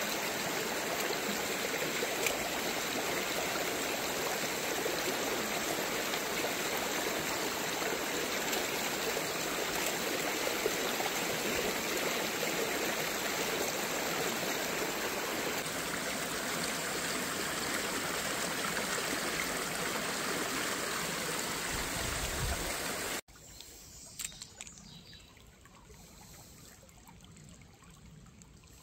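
Steady rushing of a shallow stream running over rocks. About 23 seconds in it cuts off suddenly to a much quieter, gentler trickle of water, with a few light clicks.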